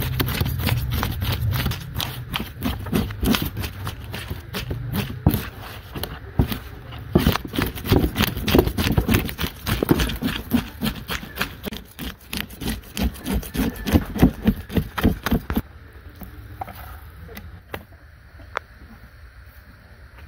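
A knife scraping the scales off a whole fish in quick, repeated strokes. The scraping stops about three-quarters of the way through, leaving only a few faint clicks.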